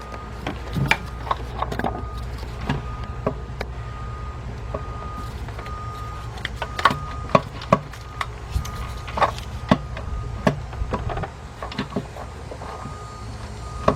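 Irregular knocks and clunks of an intake plenum and its brackets being shifted around on an engine while it is worked into line, over a steady low hum. A faint, thin high tone comes and goes.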